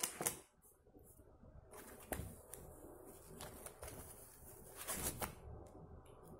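Hands handling plastic gel polish swatch sticks and bottles at a table: a few scattered light clicks and rustles, the loudest about five seconds in.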